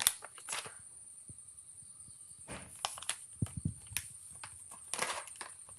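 Plastic cat food packet crinkling and rustling in short, irregular bursts with small clicks as kittens paw and bite at it, over a faint steady high whine.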